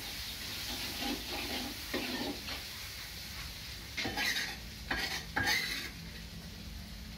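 Steady sizzling of frying in a wok, broken by several short scrapes and clatters of a utensil against cookware. The scrapes are loudest and come closest together between about four and six seconds in.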